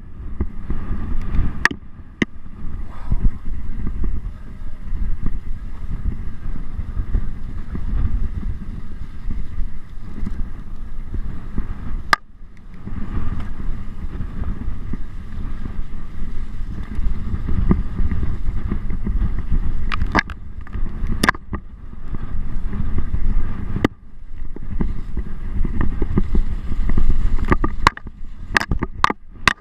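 Mountain bike rattling down a rough trail: a steady low rumble with sharp knocks and clicks scattered through it, and the level dropping briefly a few times.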